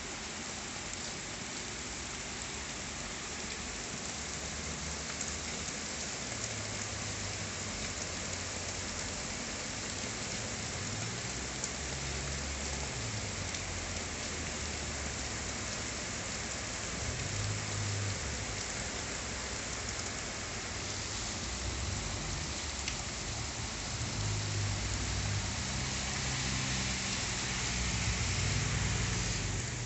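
Rain falling steadily as an even hiss, with a low rumble that comes and goes and grows a little louder near the end.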